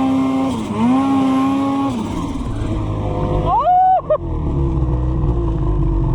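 Snowmobile engine running at a steady pitch, briefly dipping and recovering, then easing off about two seconds in. A short sharp rev rises and falls back near the middle, over a low rumble.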